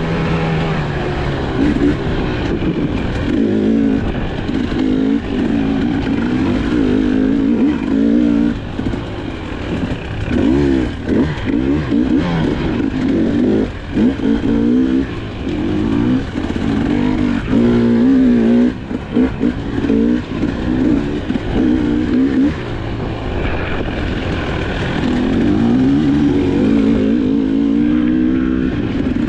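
GasGas EC300 two-stroke enduro dirt bike engine under way on a trail. The revs rise and fall over and over with the throttle, and it briefly drops off a couple of times before pulling again.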